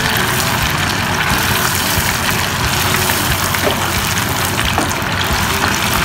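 Cornstarch-coated soft tofu deep-frying in a pot of hot oil: a steady, loud sizzle and bubbling as the pieces start to turn golden. A few light clicks come about midway as a wire spider strainer turns the pieces.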